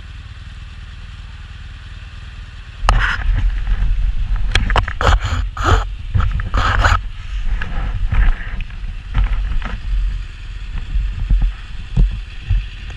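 Action camera being handled and fitted to its mount: rubbing, scraping and knocks of glove and jacket against the camera case, starting about three seconds in and busiest for the next few seconds, over a low steady rumble.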